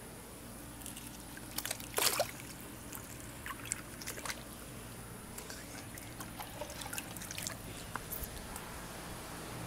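Shallow creek water trickling and sloshing, mixed with rustling and clicks from a phone handled close to the microphone, with the loudest knock about two seconds in.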